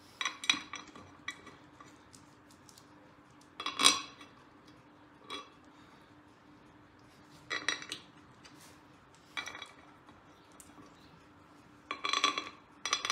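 Small metal parts and bolts clinking and rattling as they are handled and set down during engine reassembly, in short scattered bursts with the loudest about four seconds in.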